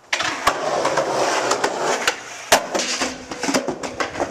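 Skateboard wheels rolling hard over concrete, then several sharp clacks as the board and rider hit the ground in a failed trick at the stairs, the loudest about two and a half seconds in.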